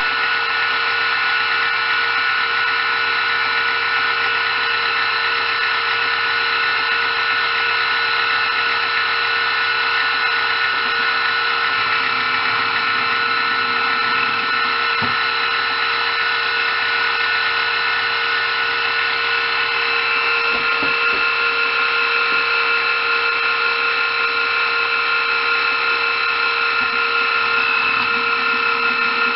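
A small power tool's electric motor running steadily with a high whine, without stopping.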